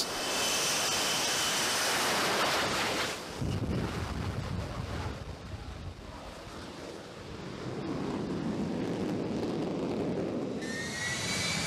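F-35B Lightning II's jet engine running at high power for a ski-jump takeoff: a rushing roar with a high whine. The roar drops about three seconds in, swells again later, and a fresh whine comes in near the end, with wind buffeting the microphone.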